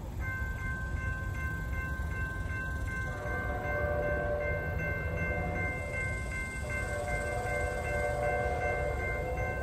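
Horn of an approaching Trinity Railway Express commuter train, heard from a distance and sounding a series of blasts. The horn comes in just after the start, and a fuller, lower chord joins about three seconds in, cutting off and resuming several times.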